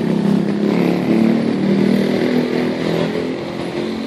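A vehicle engine running close by, its pitch wavering slightly.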